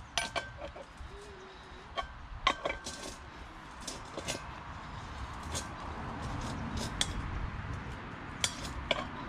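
Scattered metallic clicks and clinks of spanners working a brass regulator adapter tight onto the valve of a refillable LPG gas bottle.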